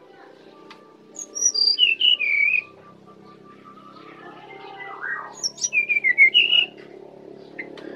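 Brown-chested jungle flycatcher singing two short warbled phrases about three seconds apart, each sliding down from a high pitch to a lower one. A low steady hum runs underneath.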